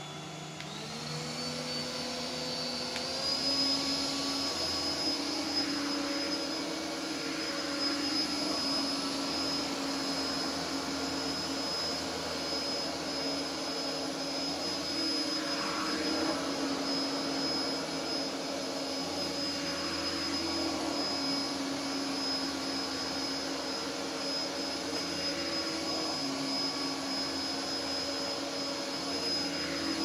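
Philips SpeedPro Max cordless stick vacuum running on its highest (turbo) setting, working over carpet to pick up loose dry black tea. It spins up with a rising whine over the first few seconds, then runs steadily with a high-pitched whine, its lower hum shifting slightly as the head is moved.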